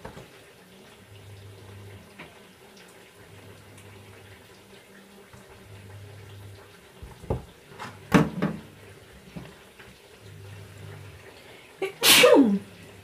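A knife on a plate with a few knocks, then near the end a short, loud rush of kitchen tap water.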